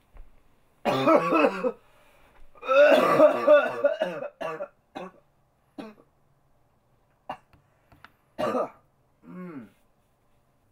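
A person coughing in a fit: two long, voiced coughing bouts in the first four seconds, then shorter single coughs every second or so, the last trailing off with a falling pitch.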